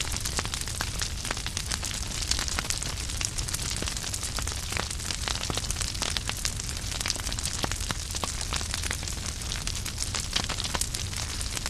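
Wood fire crackling in a fireplace: many small, irregular pops and snaps from the burning logs over a steady hiss, with a low rumble underneath.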